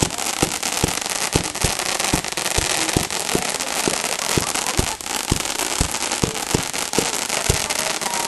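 Fireworks grand finale: a dense, continuous crackling with sharp booms from shells bursting in quick succession, about two or three a second.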